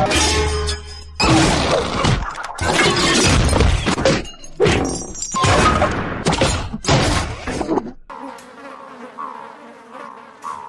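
Cartoon sound effects played in sequence: about six loud crashing, shattering noise bursts one after another, then a quieter steady buzzing, like a fly, starting about eight seconds in.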